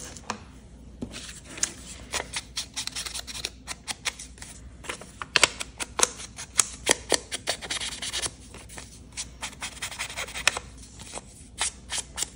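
A foam ink blending tool rubbed and dabbed along the edges of a paper panel: a quick, irregular run of short scratchy strokes on the paper, several a second.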